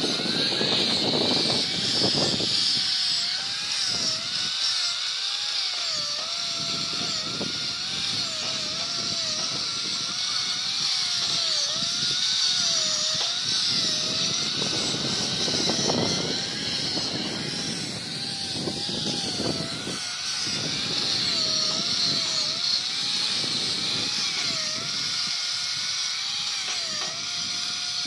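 Corded electric hand drill running continuously with a high whine, its pitch wavering up and down as the bit is pressed into the work.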